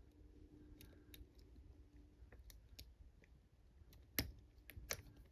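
Small metallic clicks and ticks of a lock pick and tension wrench working the pins of a four-pin Master Lock padlock: faint and scattered at first, with two louder clicks about four and five seconds in.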